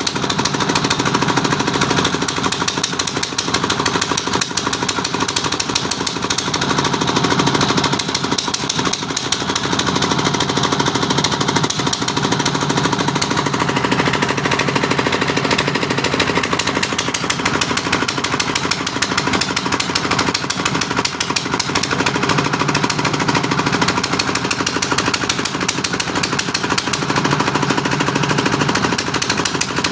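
Steady dense crackling of arc welding, with the steady hum of a running machine underneath.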